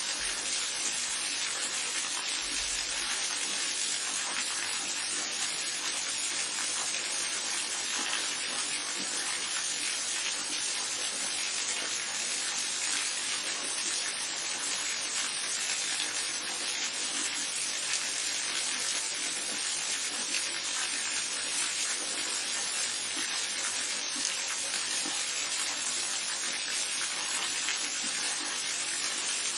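Steady rushing of falling and running water, a waterfall with a babbling brook, even in level throughout with the most energy in the upper-middle and high range. A faint low rumble sounds briefly near the start.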